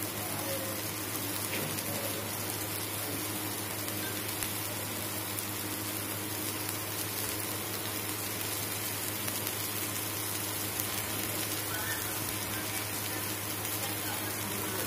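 Sliced palm heart boiling in broth in a large aluminium wok over a gas burner: a steady bubbling sizzle.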